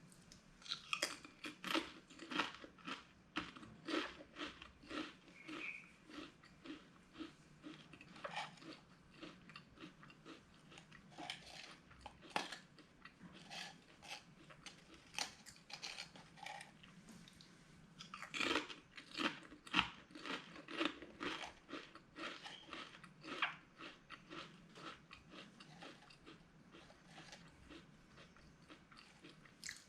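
Potato chips being bitten and chewed close to the microphone: a steady run of crisp crunches, with louder bursts of bites about a second in and again around two-thirds of the way through.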